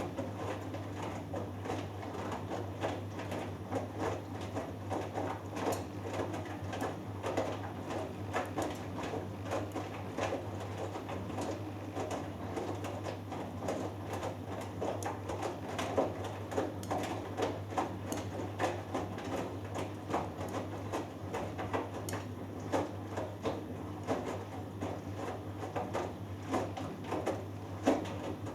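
Hoover Dynamic Next DXA610IW3 front-loading washing machine in the wash phase of a cotton cycle. The drum turns and the wet laundry falls and splashes in irregular soft knocks over a steady low hum.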